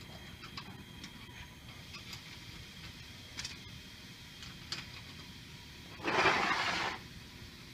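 A few light clicks of metal screws being set one by one into the holes of a brass pump flange on a steel bench, then a loud hiss lasting about a second, about six seconds in.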